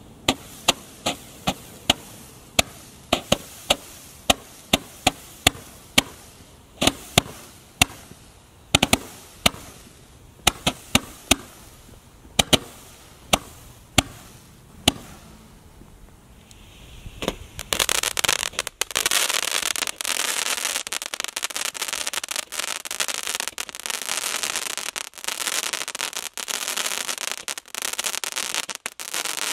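Roman candles firing: first a string of sharp pops about twice a second from a Magic Blooms candle. After a short lull, about 17 seconds in, a Crackling Attack candle gives a dense, unbroken crackle of crackling stars.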